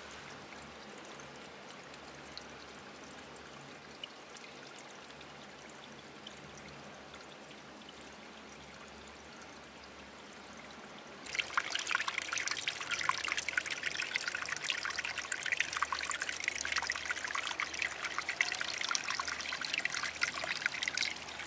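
Faint steady outdoor hiss, then about halfway through a sudden switch to louder running water, a dense trickling and splashing that carries on.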